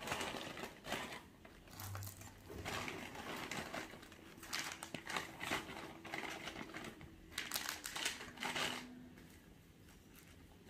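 Plastic packets and wrappers crinkling and rustling in irregular bursts as items are handled and pushed into a backpack.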